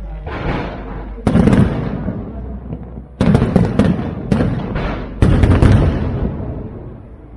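Aerial firework shells bursting: a string of sudden sharp booms, each trailing off in a rumble. One comes about a second in, a quick cluster about three seconds in, and more after five seconds.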